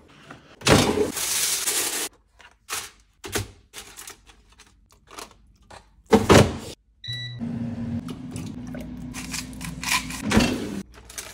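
Kitchen handling sounds: a drawer sliding open with packaging rustling, then a run of knocks and clatters. About seven seconds in an electronic appliance beeps once, and a steady electric hum follows for about three seconds, with a clatter near the end.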